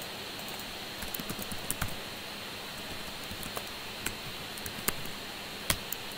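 Computer keyboard being typed on: irregular keystroke clicks, a few louder than the rest, over a steady background hiss.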